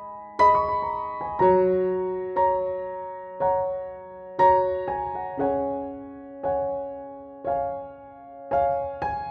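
Slow background piano music: gentle notes and chords struck about once a second, each ringing and fading away.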